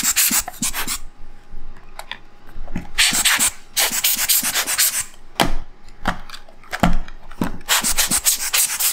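Dust being cleaned off a Sony A7R camera body: several bursts of hissing, scratchy noise, each about a second long, with light knocks in the gaps between.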